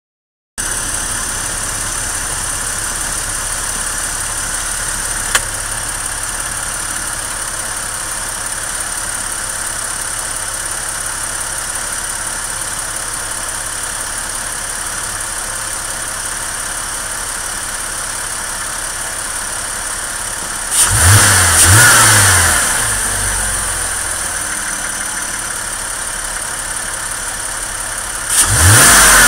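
2001 Porsche Boxster 2.7's flat-six engine idling steadily, then revved briefly twice, about 21 seconds in and again near the end. A single sharp click sounds about 5 seconds in.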